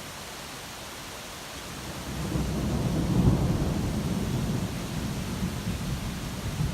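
Thunderstorm: steady rain hiss, with a low rumble of thunder that swells about two seconds in, peaks a second later and slowly fades under the rain.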